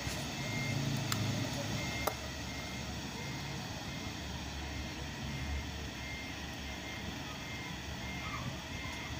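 Steady low hum and background noise, with a faint high tone that breaks on and off. A couple of light metal clicks about one and two seconds in as parts of the buttonhole sewing machine are handled.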